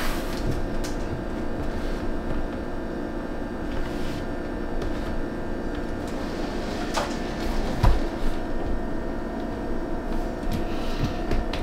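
A few light knocks and taps from a door and a small floor-mounted door stop being handled on a tile floor, over a steady background hum.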